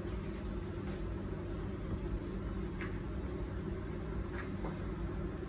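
Steady low mechanical hum of room background noise, with a few faint light ticks scattered through it.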